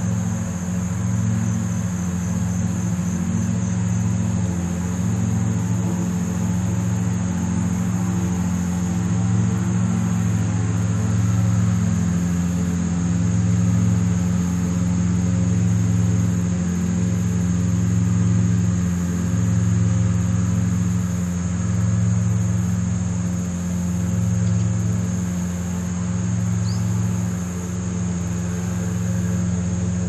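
A steady low mechanical hum that swells and eases about every two seconds, with a high, steady insect chorus above it.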